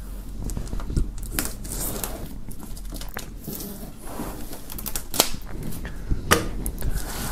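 Clear plastic shrink-wrap film crinkling and crackling as a knife blade slits it along the edge of a cardboard box: a continuous run of small sharp crackles and clicks.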